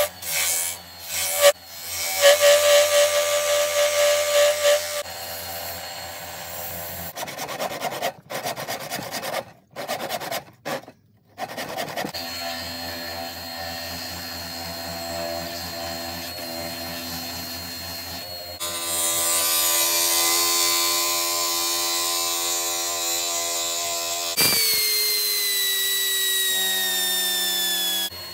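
Wood lathe running while a turning tool cuts and scrapes the spinning wood, heard in several short clips. Near the end a small hand-held sander whines against the wood, its pitch falling steadily.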